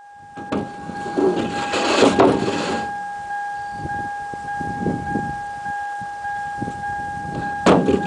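Sawmill machinery running with a steady high whine, with scattered knocks and rattles, a louder noisy stretch about two seconds in and a sharp knock near the end.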